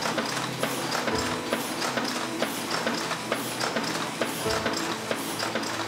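Roller sorting machine running as screws rattle through it, a fast, steady stream of small metal clicks with brief ringing tones.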